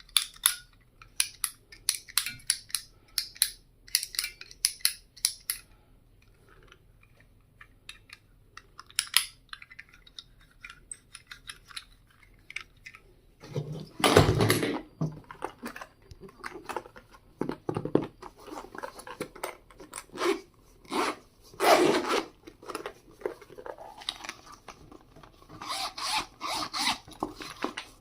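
Stationery items being handled: a quick run of small clicks and taps for the first several seconds, then, from about halfway, louder rustling and scraping with a few knocks.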